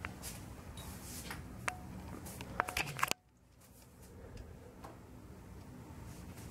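Close handling noise: light rustling and a few sharp clicks over a faint steady room hum, the sound dropping away abruptly about three seconds in and leaving only the hum.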